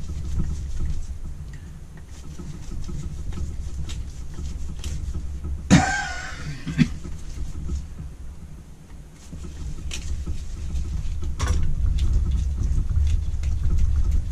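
Screwdriver work on a Holley 465 cfm four-barrel carburettor: scattered small metal clicks and scrapes over a low steady hum. About six seconds in comes a brief louder sound with a wavering pitch, framed by two sharp knocks.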